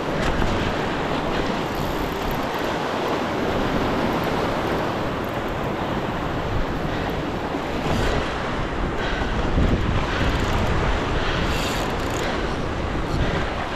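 Ocean surf washing and draining over a rocky reef shelf, a steady churning wash, with wind buffeting the microphone.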